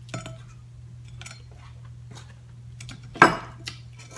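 Crab legs and shells being picked through in a metal sheet tray: scattered light clicks and clinks, with one louder knock about three seconds in.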